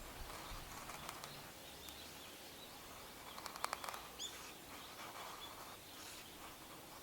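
Quiet outdoor ambience with a single short bird chirp about four seconds in, just after a quick run of sharp crackles.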